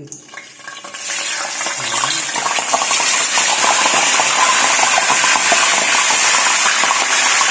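Tilapia frying in hot oil: a sizzle that swells up about a second in as the fish goes into the pan, then holds loud and steady with dense fine crackling.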